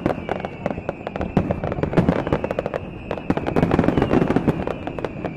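Aerial fireworks display: a dense, unbroken run of shell bursts and crackling, several reports a second.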